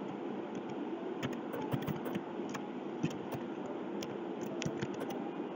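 Computer keyboard being typed on: scattered, irregular soft key clicks over a steady low background hum.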